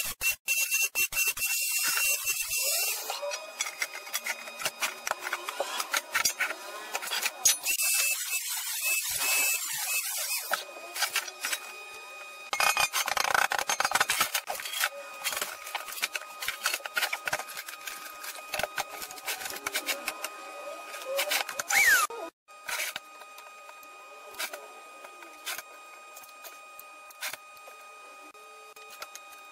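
Electric angle grinder with an abrasive disc running against a thin steel can, a rasping grind over a steady motor whine, in several bursts with quieter stretches between.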